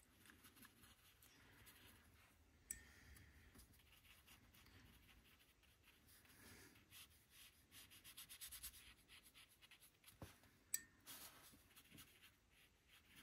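Very faint rubbing and scratching of a small damp paintbrush on paper, working water into pastel pencil. A soft tick comes about three seconds in and another late on.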